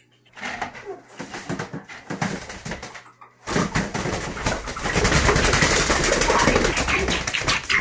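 A male Reeves's pheasant beating its wings and scrabbling as it is grabbed and held by the legs. The flapping starts in fits and becomes loud and continuous about three and a half seconds in.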